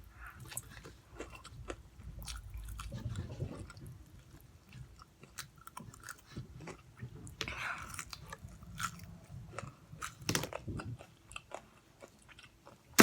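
Close-up chewing and biting of Popeyes fried food, with wet mouth clicks and some crunchy bites, and a single sharp knock right at the end.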